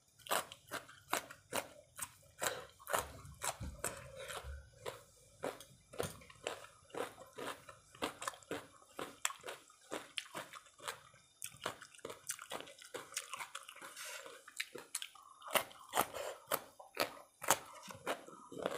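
Raw cucumber being bitten and chewed: a steady run of crisp, wet crunches, a few a second.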